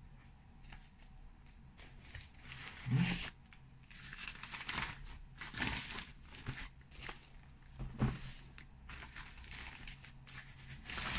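Rustling and crinkling of packaging as the shaver's cleaning station, in a non-woven fabric bag over plastic wrap, is lifted out of a cardboard box, with a couple of light knocks.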